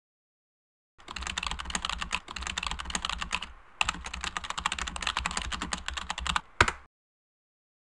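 Fast typing on a computer keyboard, a quick run of keystrokes that stops briefly partway through, picks up again, and ends with one louder single keystroke.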